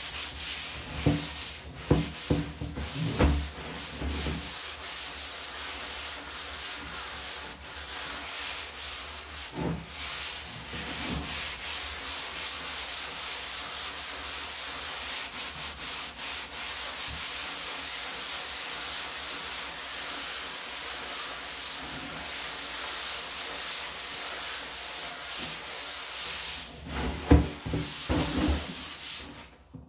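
Soapy plastic garbage can being scrubbed by a rubber-gloved hand: a steady, close-up rubbing scrub, with a few knocks in the first few seconds and a louder cluster of knocks near the end.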